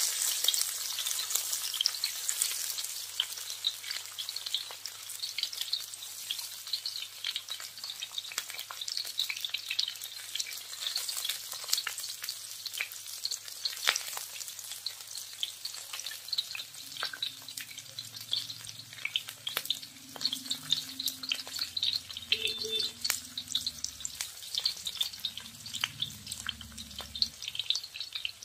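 Sliced shallots, garlic and chilli sizzling in hot oil in a wok, stirred with a spatula that scrapes and clicks against the pan.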